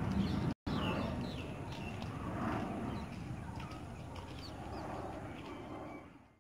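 The General Electric J79 jet engine of a passing IAI Kfir fading away, then, after a brief dropout, birds chirping repeatedly over a faint low rumble.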